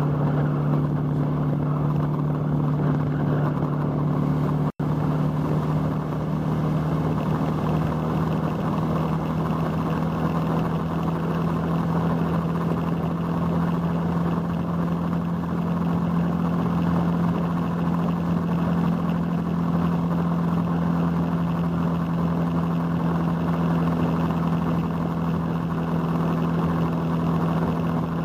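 Motorcycle engine running at a steady cruise, heard from on the bike, its pitch rising slightly around the middle. The sound cuts out for an instant about five seconds in.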